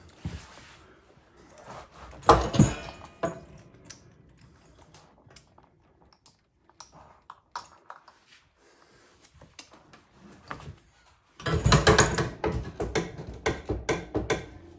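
Hand work on a saddle at the bench: scattered light clicks and taps of leather and tools being handled, a loud knocking cluster about two seconds in, and a dense run of rubbing and scraping strokes near the end.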